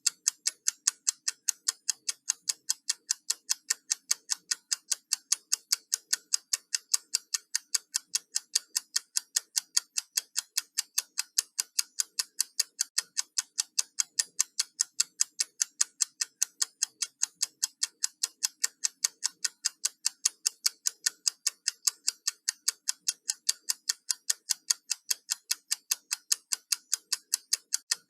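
Countdown timer ticking: fast, perfectly even, sharp high-pitched ticks, several a second, that never change in speed or loudness.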